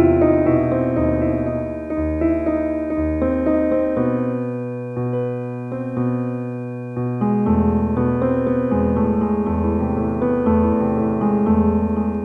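Relaxing piano music: notes struck one after another over held low bass notes.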